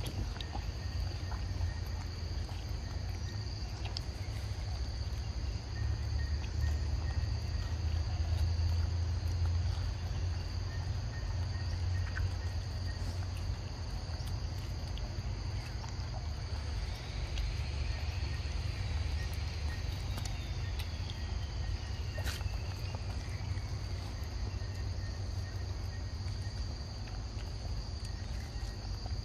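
Steady high-pitched insect chorus droning without a break over a low rumble. About two-thirds of the way through, a long whistle-like call slowly falls in pitch. Faint scattered clicks sound now and then.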